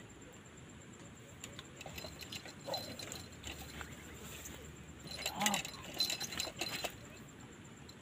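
Quail scuffling and fluttering inside a plastic-and-wire trap cage, a run of clicks and rattles that is loudest about five to seven seconds in.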